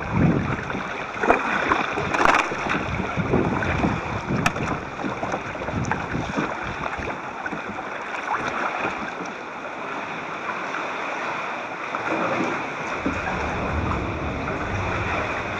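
Sea water splashing and sloshing around a plastic sit-on-top kayak as it is paddled through shallow rocky water, picked up through a waterproof camera housing on the hull. The splashes come thickest in the first several seconds, then settle into a steadier wash of water.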